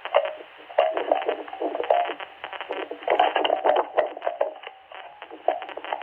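Strange noises over a narrow-band radio channel: a steady jumble of rapid clicks and short warbling tones, thin and tinny like sound through a radio or phone speaker.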